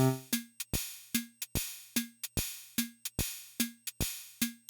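Yamaha Portasound PS-2 keyboard's built-in rhythm section playing its swing preset: a simple electronic drum pattern of short ticking cymbal hits and a low tuned drum, at about two and a half beats a second.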